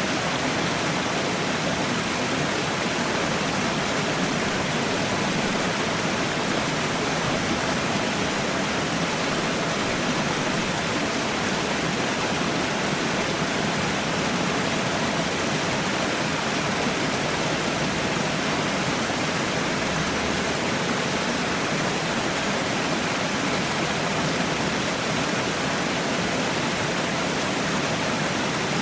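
Water falling and rushing in a steady, even hiss with no breaks or changes.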